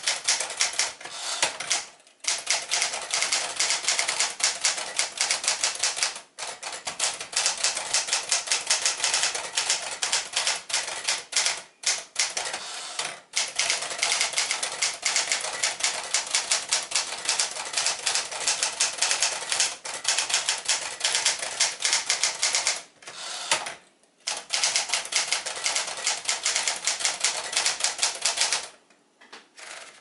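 Sears Tower Commander manual portable typewriter, built by Smith-Corona on its Sterling 5AX mechanism, being typed on quickly: a fast, continuous run of typebar strikes with a few short pauses. The typing stops shortly before the end.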